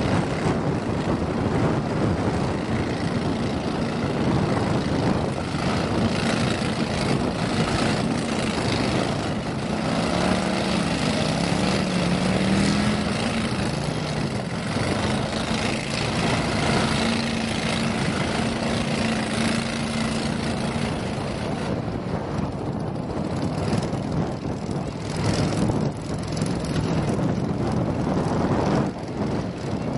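Pro-Drive mud motors on jon boats running together, a steady engine drone over a rough noisy wash, with engine pitch rising and falling a little toward the middle.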